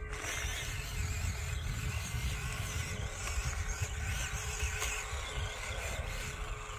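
Wind rumbling on the microphone over the quiet running of a small RC crawler truck, its 66-turn Injora motor and drivetrain working over dry, rocky dirt.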